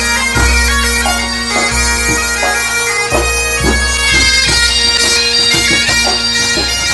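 Bagad pipe band playing: bagpipes carry a melody over a steady drone, with regular drum strikes.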